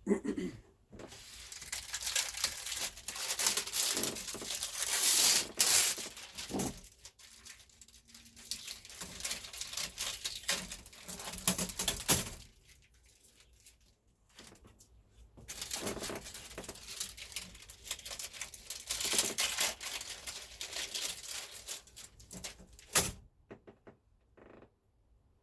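Crinkling and rustling of packaging being handled, in two long stretches with a pause between, dotted with small clicks, and a sharp knock near the end.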